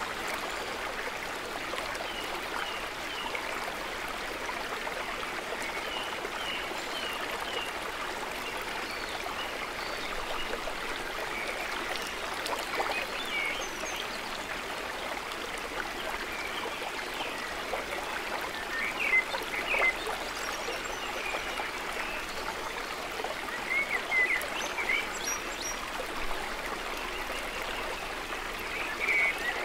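Shallow stream running over rocks, a steady rush and babble of water, with short high chirps now and then, in clusters about two-thirds of the way through and again near the end.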